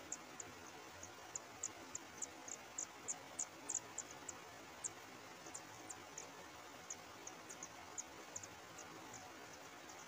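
Kacer air nestlings begging at the nest, a fast run of thin, very high cheeps, several a second, over a faint steady hiss. The cheeps come thickest in the first half and again briefly near the end.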